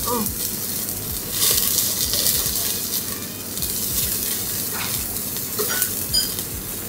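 Slices of wagyu beef sizzling and crackling on a yakiniku grill's wire mesh over glowing coals, the fat spitting as the meat is turned with tongs. The sizzle swells for a second or so about a second and a half in.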